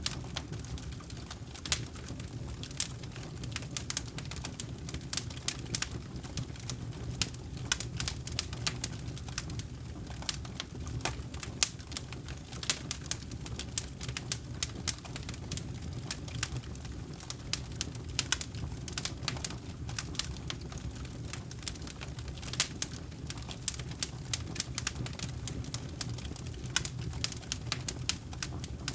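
Wood campfire crackling, with many sharp, irregular pops and snaps, several a second, over a steady low rumble of the burning fire.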